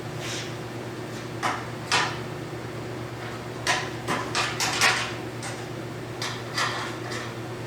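Irregular sharp clacks and knocks of hand tools and parts being handled during bumper removal on a pickup truck, bunched together in the middle. A steady low hum runs underneath.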